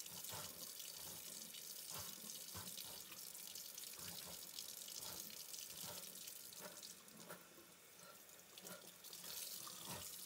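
Faint kitchen tap running steadily, the stream pouring over a man's head and into a stainless steel sink, with uneven splashing.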